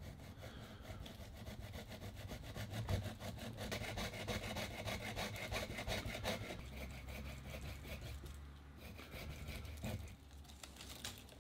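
Small hand saw cutting through a field elm branch: a fast, steady run of sawing strokes that slows and stops near the end.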